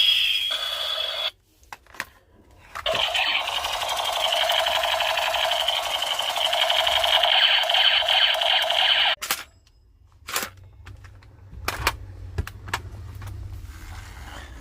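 Battery-operated toy playing an electronic sound effect, a loud rapid buzzing rattle. It stops after about a second, starts again about three seconds in and runs for about six seconds, then gives way to a few sharp clicks and knocks.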